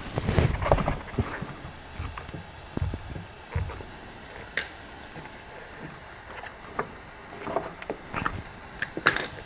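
Scattered small clicks, taps and rustles of gloved hands and hand tools working on a car's door wiring harness as the wires of a repair splice are twisted together, with a sharper click about halfway through and a few more near the end.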